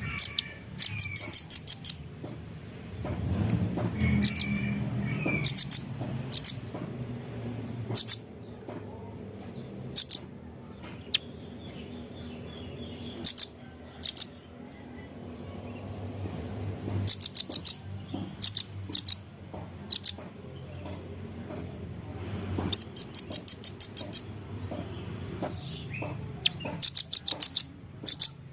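Velvet-fronted nuthatch (red-billed nuthatch) calling: quick runs of sharp, very high chips, each run about a second long, with single chips between them.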